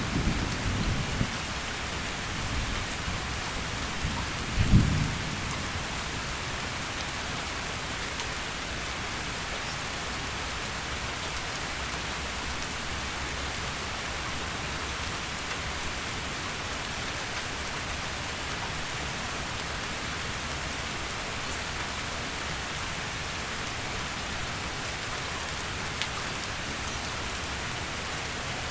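Heavy rain falling steadily, with low rolls of thunder in the first seconds, the loudest about five seconds in, then rain alone.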